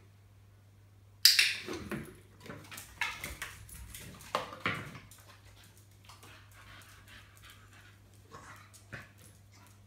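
Grey plastic pipe elbows knocked and scraped on a tile floor as they are rearranged, in a run of sharp clatters that starts suddenly about a second in and lasts a few seconds. Near the end a dog sniffs into the pipes in short puffs.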